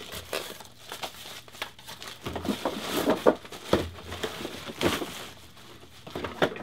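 Clear plastic bag crinkling and rustling in irregular bursts as a car stereo head unit is lifted out of its foam packing and slid out of the bag.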